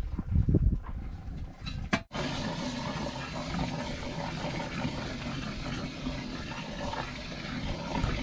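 Thick blended feedstock poured from a stainless steel bucket into a biogas digester's intake hopper, glugging and splashing in a few heavy, low slops in the first second. About two seconds in there is a sharp click, then a steady rushing hiss.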